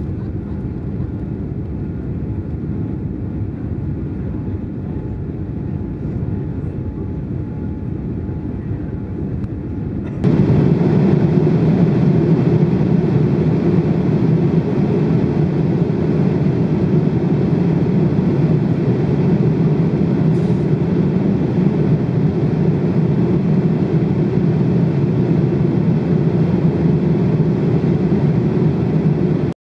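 Steady cabin noise inside a Boeing 787 in flight, heard from a window seat over the wing: engine and airflow noise during the climb, which jumps abruptly louder and deeper at an edit about a third of the way in to the steady cruise cabin noise.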